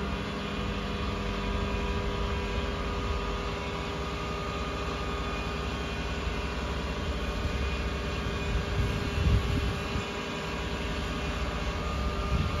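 Cat MH3022 wheeled material handler's diesel engine running steadily, with held steady tones from the hydraulics as the high-rise cab is raised. A few brief low swells come about nine seconds in.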